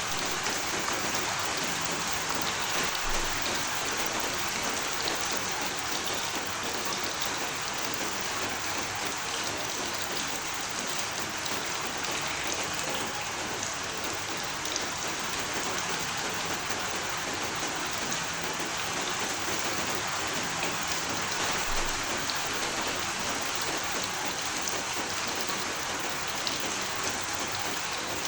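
Steady rain falling on a surface: an even, dense hiss with scattered drop ticks, holding the same level throughout.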